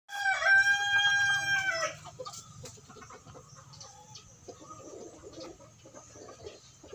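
A native chicken rooster crows once, a single held call of nearly two seconds that rises at the start and drops off at the end. Faint clucks follow.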